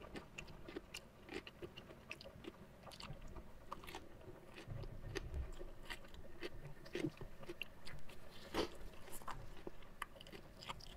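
Close-miked chewing of a mouthful of raw watercress and rice: irregular small crunches and wet mouth clicks, with a brief low hum about five seconds in.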